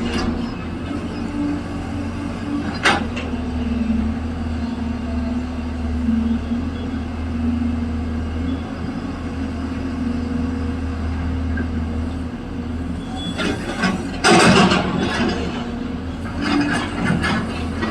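A heavy earthmoving machine's diesel engine runs steadily. There is a single sharp knock about three seconds in, and clusters of metallic clanks and rattles come about three-quarters of the way through and again near the end.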